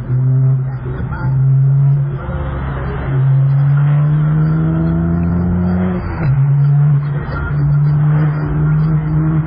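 Car engine accelerating through the gears: its pitch climbs steadily and drops back at upshifts about two and a half and six seconds in.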